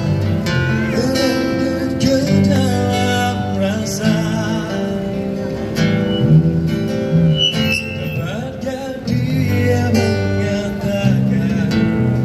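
Live band playing a song's instrumental opening: strummed acoustic guitar over sustained electric bass and keyboard notes, amplified.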